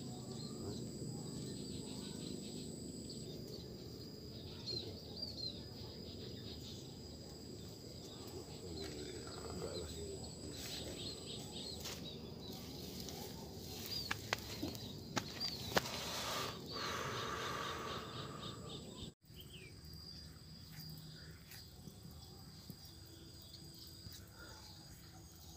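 Outdoor ambience: scattered short bird chirps over a low steady background rumble and a thin steady high whine. A few clicks and rustles come about two-thirds of the way through.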